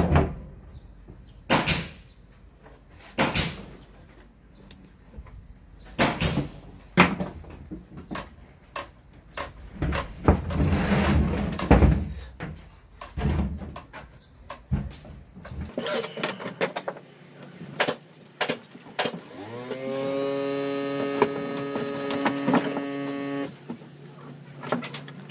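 Clicks, knocks and clatter of hand tools and parts being handled on a scooter's handlebar and front cowl area. Near the end a pitched hum rises in pitch, then holds steady for about four seconds before stopping.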